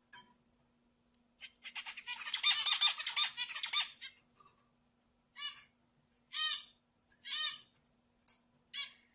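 Zebra finches calling: a fast, dense run of short nasal calls for a couple of seconds, then single calls about once a second.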